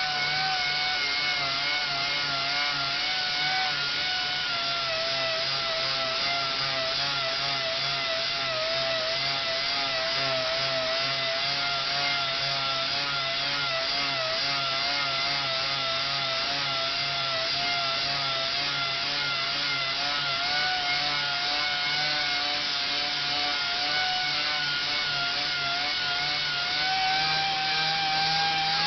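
Random orbital (DA) sander running steadily against a Corian solid-surface countertop, grinding down a deep scratch. Its whine wavers slightly as it is pressed and moved, and it winds down right at the end.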